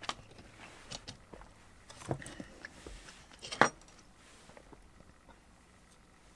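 Quiet eating sounds: a few light clicks and taps, the sharpest about three and a half seconds in.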